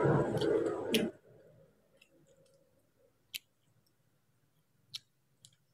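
A loud rushing noise stops abruptly about a second in. Then it is almost quiet except for two sharp mouth clicks, with a fainter third near the end, from a person chewing a mouthful of rice.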